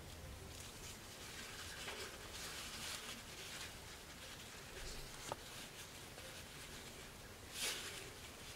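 Faint rustling and crinkling of a Gore-Tex jacket's shell fabric and seam tape handled by hand, with a sharp click about five seconds in and a brief louder rustle near the end.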